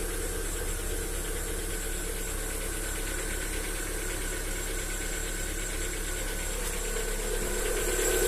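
Lada Vesta SW Cross engine idling cold with a steady, rhythmic knock, getting a little louder near the end. This is a cold-start knock that lasts about 35–40 seconds and then stops. The owner first took it for a single hydraulic lifter but now leans towards piston slap.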